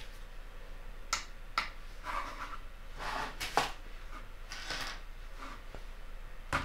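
Handling noises as a SNAPTAIN SP500 drone and a small digital scale are set down and shifted on a cutting mat: a few light clicks and rubbing scrapes, with a sharper knock near the end as the drone goes onto the scale.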